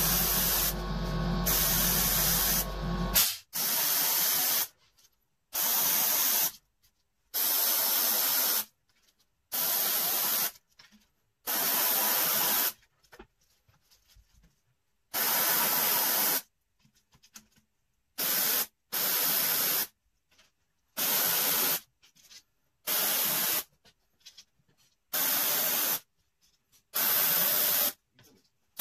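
Airbrush spraying paint in about a dozen short hissing bursts of a second or so each, with silent gaps between them. For about the first three seconds a steadier hiss runs over a low hum.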